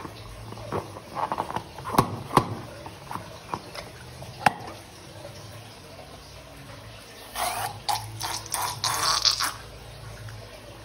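Slime and balloons being handled: a few sharp taps and clicks, then a couple of seconds of squishy, wet squelching about seven seconds in.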